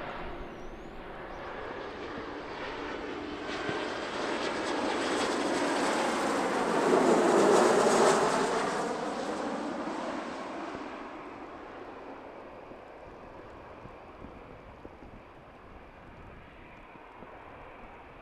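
Airliner passing close by, its engine noise building to a peak about seven to eight seconds in, sweeping in pitch as it goes past, then fading away.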